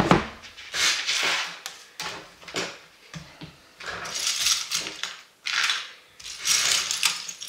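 Loose plastic LEGO bricks clattering as they are swept and sorted by hand on a desk, in several short bursts, after a single knock at the start.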